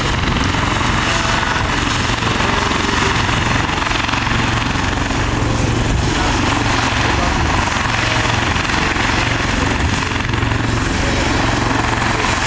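Hawker Sea Fury's Bristol Centaurus radial piston engine running at low taxiing power: a loud, steady drone with a rapid low pulse, holding even throughout.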